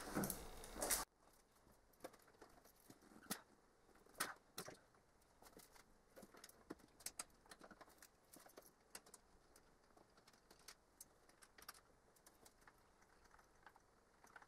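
Near silence broken by scattered faint clicks and taps of hand tools and small bolts on engine parts, as the wiring harness is unbolted from the intake manifold.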